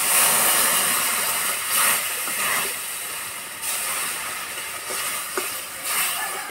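Cow's milk poured into a hot wok of ghee-roasted semolina, hitting the pan with a sudden loud hiss and sizzle of steam. The hiss is loudest at first and slowly dies down over the next few seconds.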